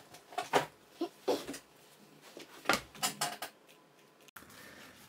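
Shoes being handled and set down: a scatter of light knocks and rustles, thickest in the first three seconds, then quieter.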